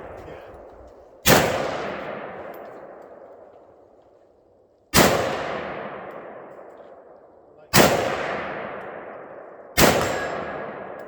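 Four single gunshots from a firearm, spaced a few seconds apart. Each is a sharp crack followed by a long echo that dies away over a couple of seconds.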